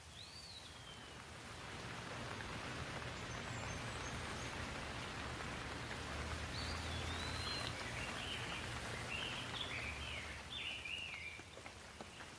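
Rain falling steadily, growing heavier over the first few seconds and easing near the end. A bird calls in short whistled notes at the start and again in a run of chirps about halfway through.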